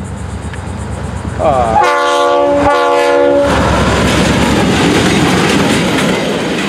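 Florida East Coast Railway locomotive's air horn sounds one blast of about two seconds, a chord of several notes that scoops up in pitch as it starts, about a second and a half in. Then the locomotive passes close by with loud engine and wheel-on-rail noise.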